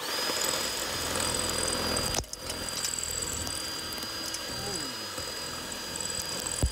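Cordless drill boring into a crumbly plastered masonry wall, the motor whining steadily as the bit grinds through the render and stone. A sharp knock about two seconds in, after which it runs on a little quieter.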